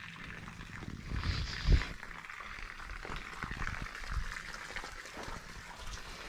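Rustling and handling noise with scattered small clicks, and one dull thump a little under two seconds in.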